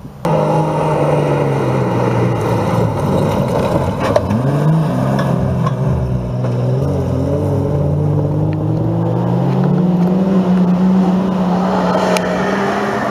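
Engines of GAZ race trucks working hard under full throttle on a dirt climb. The pitch dips and climbs back about four seconds in, then rises to a steady high note.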